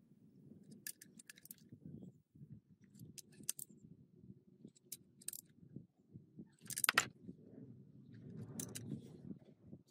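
Light metal clicks and clinks, scattered and irregular, over a faint low rumble, with one sharper knock about seven seconds in: tools and metal parts being handled during restoration work.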